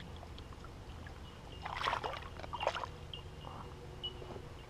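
A common carp thrashing in shallow water while held by hand: two short splashes a little under a second apart, about two seconds in.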